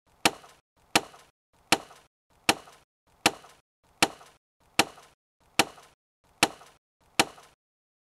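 Axe chopping wood, used as a sound effect: ten sharp, evenly spaced strikes, about one every three-quarters of a second.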